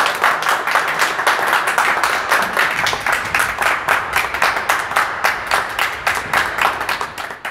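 Applause: hands clapping steadily and densely, starting suddenly and fading out near the end.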